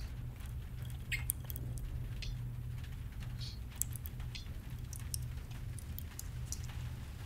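A low steady hum with faint, irregular light ticks and patters scattered over it.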